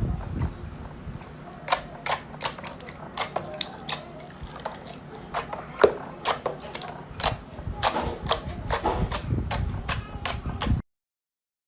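Slime being squeezed and pressed by hand, giving irregular sharp pops and crackling clicks; the sound cuts off abruptly near the end.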